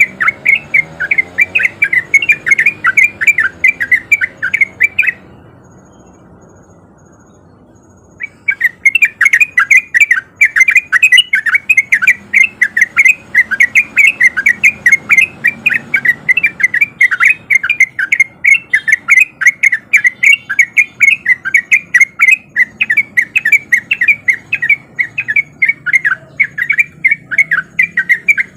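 Yellow-vented bulbul (trucukan) singing a rapid, continuous run of loud chirping notes, about three to four a second. The song breaks off for about three seconds near the start, then resumes.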